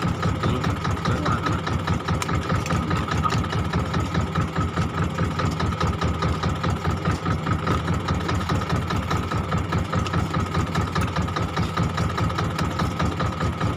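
Fishing boat's engine running steadily, a fast even chugging, with a steady higher whine over it.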